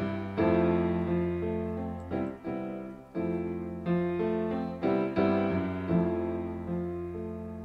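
Background music: piano chords struck about once a second, each ringing and fading, the last one dying away near the end.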